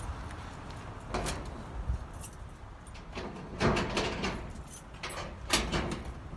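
Scattered clunks and rattles of things being handled and moved about inside a minivan, over a low steady rumble, with a cluster of knocks in the middle.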